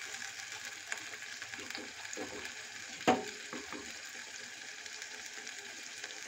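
Masala paste frying in oil in a clay pot with a steady, faint sizzle, at the stage where the oil has separated out. A wooden spatula scrapes and clicks against the pot a few times in the first half, with one sharp knock about three seconds in as the loudest sound.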